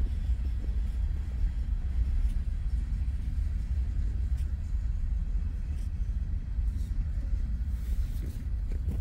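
Low, steady rumble.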